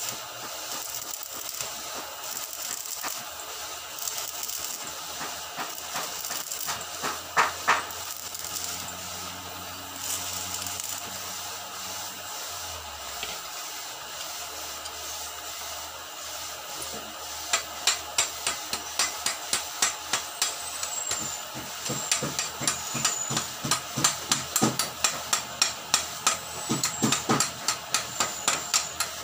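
Stick-welding arc crackling and hissing for about the first ten seconds. From about two-thirds of the way in there is a run of sharp taps on metal, two to three a second, to the end.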